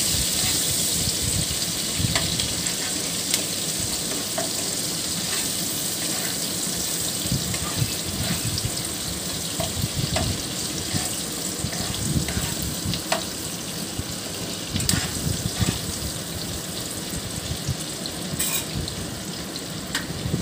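Sliced onions sizzling steadily in hot oil in a wok, stirred with a spatula that scrapes and taps the pan now and then. The onions are being sautéed only until their raw flavour goes, not browned.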